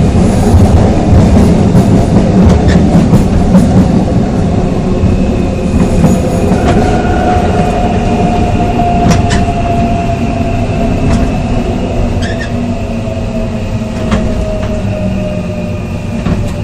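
Korail Class 3000 electric multiple unit running, heard from inside the car: steady rumble of wheels on rail with scattered clicks. From about seven seconds in, the whine of its Mitsubishi GTO inverter drive slowly falls in pitch as the train slows.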